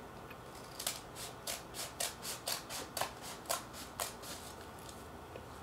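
Scissors snipping through a stack of layered newspaper coupon sheets, about a dozen quick even cuts, three or four a second, that start about a second in and stop shortly before the end.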